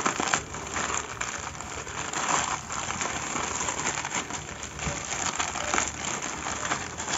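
Black plastic mailer bag and bubble wrap crinkling and rustling unevenly as they are handled and pulled open, with small irregular crackles.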